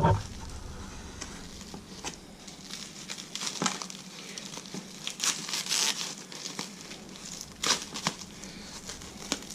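Packaging wrap crinkling and rustling in uneven bursts as it is pulled off by hand, loudest about halfway through and again a couple of seconds before the end.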